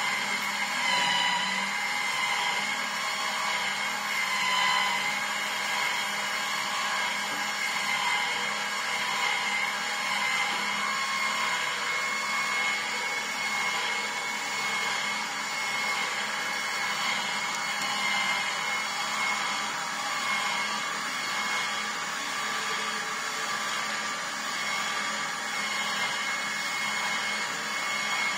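Vertical slow juicer running steadily as it presses pineapple chunks: an even motor hum with a steady high whine on top.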